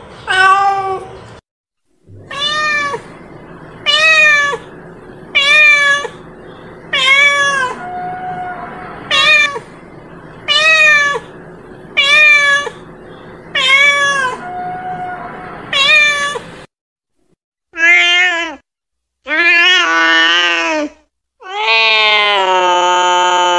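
Ginger-and-white domestic cat meowing over and over, calling: about a dozen short meows, roughly one every second and a half, then after a short pause three longer, louder meows, the last one drawn out.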